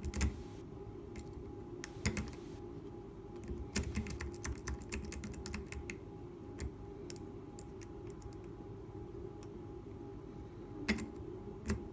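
Lock pick raking up and down the pin stack of a cheap alarm padlock: a run of small metallic clicks and scrapes, busy in the first half, sparser later, with a couple of louder clicks near the end.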